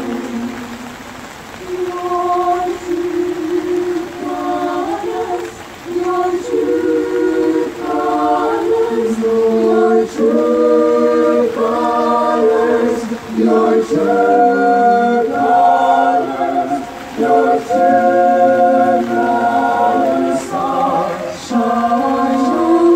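High-school choir singing a cappella in several-part harmony, holding chords in phrases with short breaks between them, fuller and louder from about halfway through.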